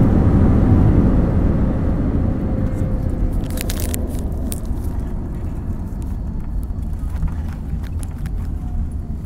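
Airliner cabin noise during the landing rollout: a low rumble of jet engines and wheels that fades over the first few seconds as the plane slows, with a faint whine dropping in pitch. A few light clicks and rattles come around four seconds in.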